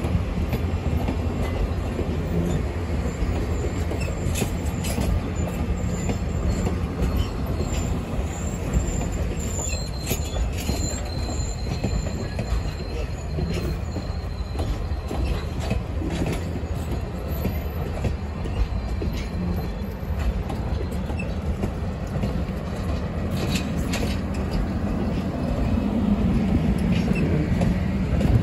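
Passenger coaches rolling past close by: a steady rumble of steel wheels on rail, occasional clicks from the rail joints, and a thin, high wheel squeal through the middle stretch. The rumble swells a little near the end.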